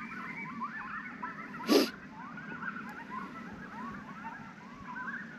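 A pack of coyotes yipping and howling in chorus, many short wavering calls overlapping. About two seconds in there is one sharp pop.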